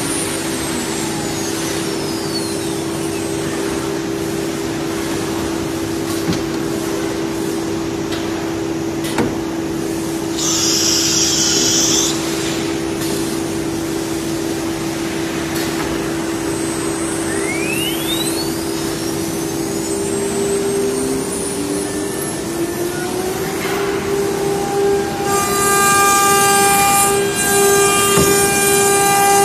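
CNC router's 9 kW air-cooled spindle (24,000 rpm) running with a steady high whine while it routes grooves into MDF door panels under the dust-extraction hood, with a short burst of hiss about ten seconds in. Over the last few seconds the machine grows louder, with several added tones.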